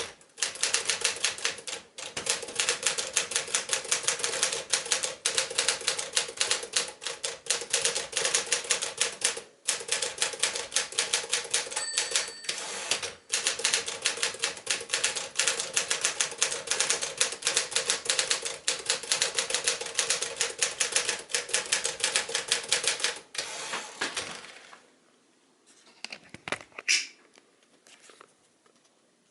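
Tower Quiet-Tabulator manual portable typewriter (a Smith-Corona Sterling build) being typed on fast, a dense run of keystrokes with a few short pauses and a brief ring about halfway through. After about 23 seconds the typing stops, leaving a few quieter clicks and one sharp clack.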